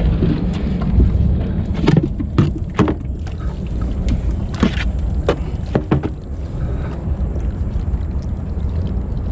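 Sharp knocks and clatter of catch and net being handled in a small boat, about seven of them in the first six seconds, over a steady low rumble.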